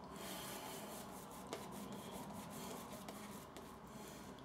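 Shaving brush working soap lather onto the face: a faint, steady bristly rubbing.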